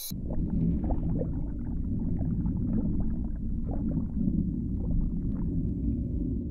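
Underwater ambience: a steady low rumble with small bubbling gurgles scattered through it, starting abruptly.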